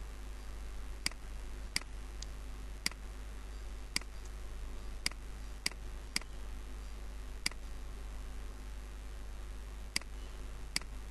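Computer mouse clicking about ten times, in sharp single clicks at uneven intervals, over a steady low background hum.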